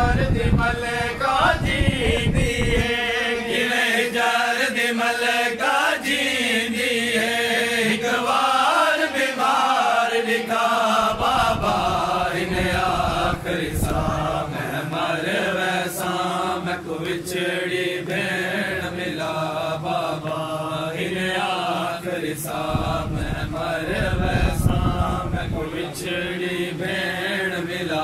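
Men's voices chanting a noha, a Shia lament, in unison without instruments, a slow mournful melody that rises and falls in repeating phrases.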